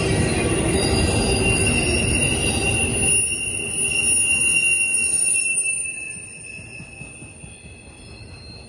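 Norfolk Southern double-stack intermodal freight cars rolling past with a loud rumble of wheels on rail and a high, steady squeal from the wheels; the rumble drops off about three seconds in, and the squeal and overall sound fade about two-thirds of the way through.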